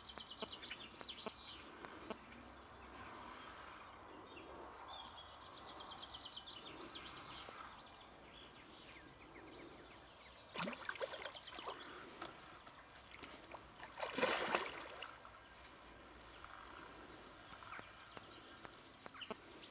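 Quiet outdoor ambience with faint running river water. Short rapid bird trills come near the start and again about five seconds in, and brief louder rustles or knocks come about ten and fourteen seconds in.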